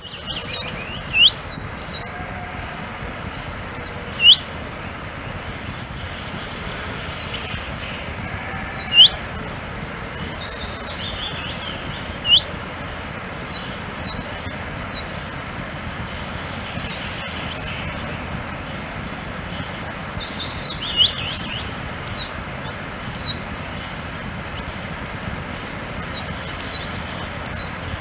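Chaffinch calling: scattered short, sharply rising whistled notes and quick high chips, a few seconds apart at first and coming thicker in the second half, over a steady background hiss.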